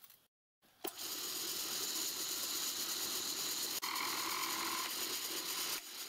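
Milling machine's end mill cutting a pocket in a metal block held in a vice: a steady machining noise that starts about a second in, after a short break of near silence. A brief higher ring joins about four seconds in, and the cutting drops away near the end.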